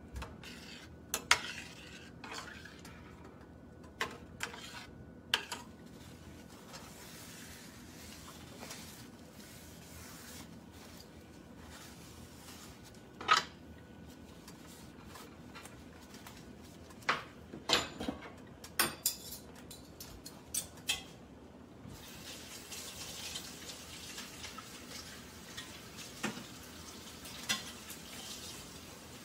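A metal spoon clinks and scrapes against a stainless steel pan of simmering potato and buttermilk curry, in scattered single clinks with a cluster in the second half. In the last third there is a soft, steady hiss of the curry simmering in the pan.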